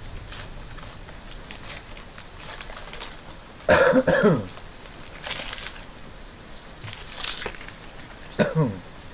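A person coughing twice, once about four seconds in and again near the end, over a steady hiss of rain.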